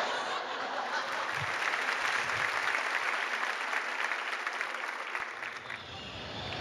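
Large theatre audience applauding, a dense stream of many hands clapping that eases off near the end.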